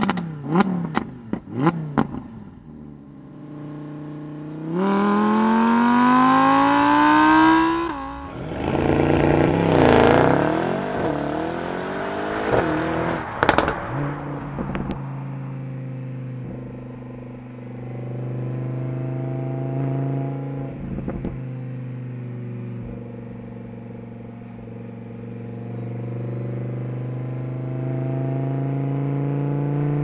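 Plymouth Prowler's 3.5-litre V6 exhaust: a few sharp throttle blips, then a long rev climbing in pitch that cuts off about 8 s in, then more uneven revving. From about 15 s on comes a steadier drive-by drone from a Lamborghini Huracán EVO's V10, its pitch rising slowly.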